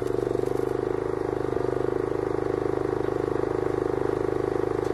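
Small engine running steadily at constant speed, with a fast, even pulse.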